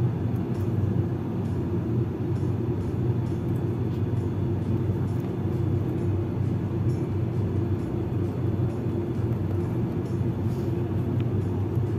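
ATR 42-600 cabin with its Pratt & Whitney PW127 turboprop engines running as the aircraft taxis: a steady low propeller drone with no change in level.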